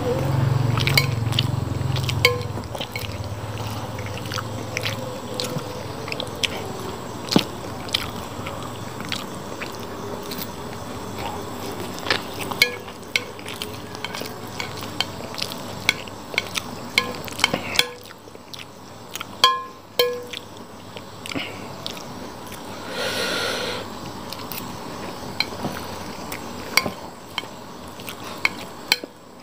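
Metal spoon clinking and scraping on a glass plate as it scoops fried rice, in many irregular sharp clicks, with chewing between the scoops.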